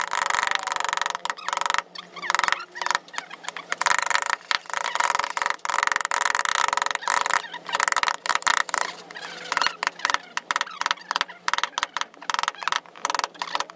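Steel carving chisels and gouges being driven into soft wood by a wooden mallet, in quick irregular taps and knocks with chips splitting away. A steady hum runs underneath.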